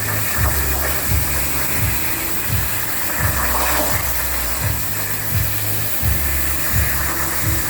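Background music with a steady beat and bass line, over a constant hiss.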